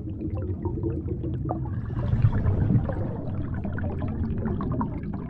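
Bubbling, gurgling liquid sound effect over a low rumble. It swells about two seconds in and eases off near the end.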